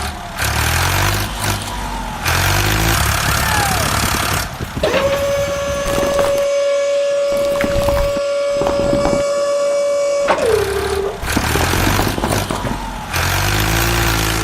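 Truck engine noise with a long, steady horn blast of about five seconds in the middle, whose pitch drops as it ends.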